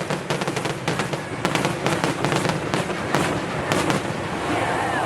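Fireworks grand finale: a dense, continuous barrage of rapid bangs and crackling pops.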